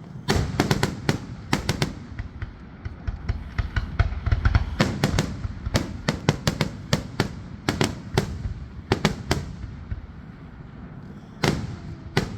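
Fireworks finale: rapid volleys of sharp cracks and bangs over a low rumble, thinning out briefly near the end before another burst of cracks.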